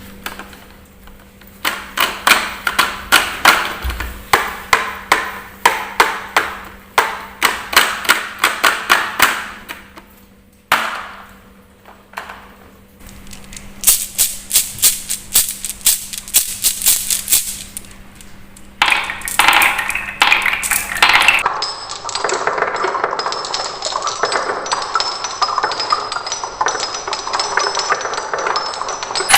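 Balls clattering down a wooden marble run: quick runs of sharp clicks in clusters, with pauses between the runs. From about two-thirds of the way in, a continuous rolling rattle takes over.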